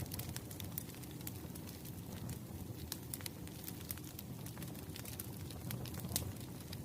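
Wood fire burning: logs crackling and popping with many small irregular snaps over a steady low rumble of the flames, one sharper pop about six seconds in.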